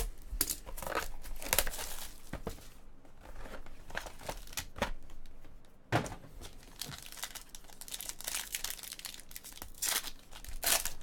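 Trading card pack wrappers being torn open and crinkled by hand in irregular rustling strokes, with a sharper knock about six seconds in.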